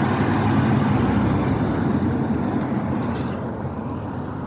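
Heavy truck passing by: engine and tyre noise swelling to its loudest within the first second, then slowly fading.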